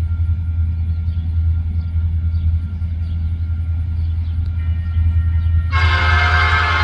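Steady low rumble of an approaching train; about four and a half seconds in, a locomotive's Nathan P5 five-chime air horn comes in faintly, then sounds loudly as a full chord a second later.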